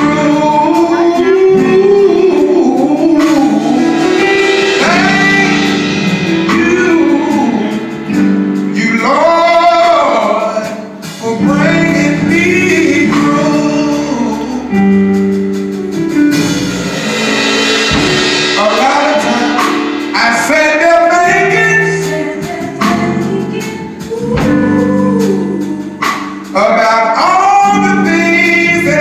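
Live gospel singing: female and male voices singing together, accompanied by a guitar.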